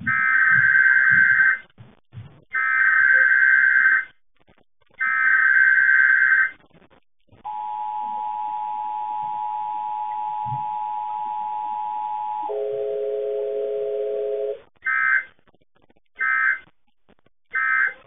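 Emergency Alert System tones. Three long screeching SAME data bursts open it, then the steady two-tone EAS attention signal sounds for about five seconds. A lower cluster of tones follows for about two seconds, and three short SAME bursts near the end mark the end of the message.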